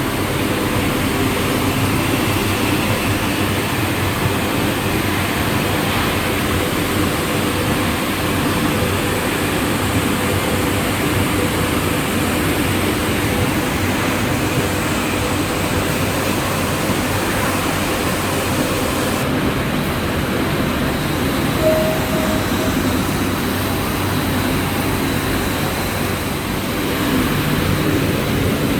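Steady running noise of industrial recycling machinery, an even mechanical din with a few faint steady tones. The high end shifts about two-thirds of the way through.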